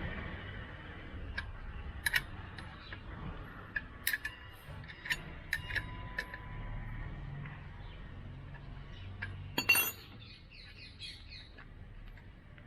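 Scattered metallic clinks and taps of a spanner working the nut that holds the motorcycle's exhaust cover. There is a louder clatter about ten seconds in, followed by a quick run of light ticks.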